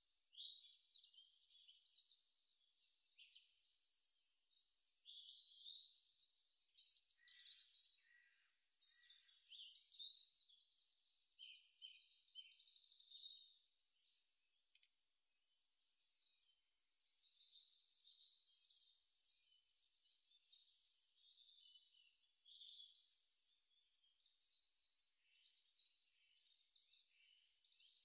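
A dense, continuous chorus of small birds chirping and twittering, fairly faint and high-pitched, a little busier a few seconds in.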